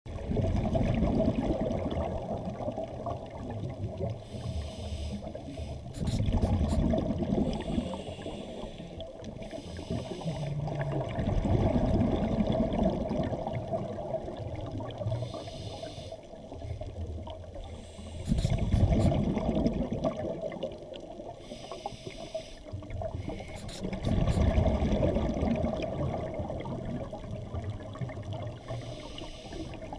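Underwater sound of a scuba diver breathing through a regulator: a slow cycle of breaths about every six seconds, each exhale a rush of bubbles.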